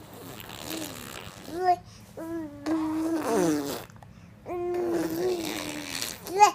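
A voice making a string of odd held, pitched noises, about five of them, each starting abruptly and separated by short pauses; one slides down in pitch a little after three seconds in, and the longest is held for over a second near the end.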